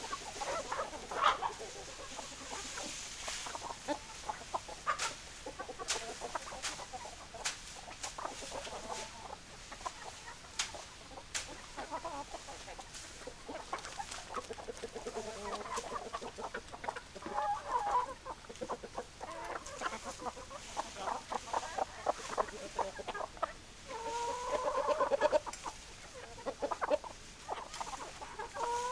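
Chickens clucking: a run of short repeated clucks from several birds, with scattered sharp clicks, and one longer, louder drawn-out call a little over three-quarters of the way through.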